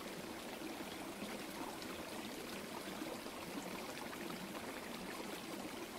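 Small forest stream running over rocks and a little cascade: a steady trickling and splashing of water.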